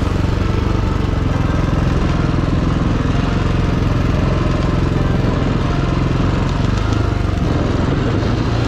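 Off-road motorcycle engine running at fairly steady revs.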